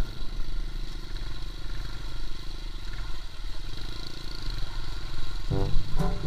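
A steady low rumble of a running engine with a faint hum, then background music coming back in near the end.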